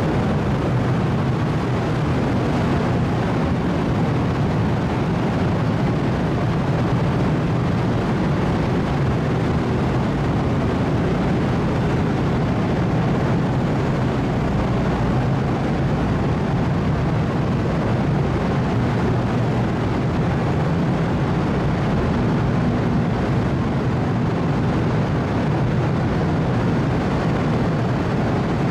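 Steady low rumble of the car ferry Lavender's machinery, heard on its enclosed vehicle deck while the ship is still under way, with a faint hum in it.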